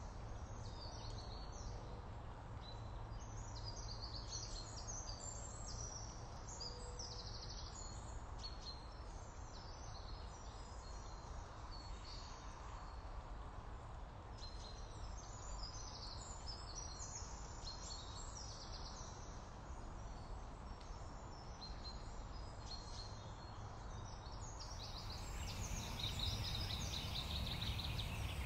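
Small birds chirping over a steady low background rumble, the chirps growing louder near the end.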